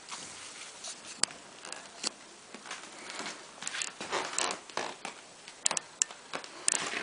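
Irregular rustling with light taps and a few sharp clicks, coming thicker in the second half.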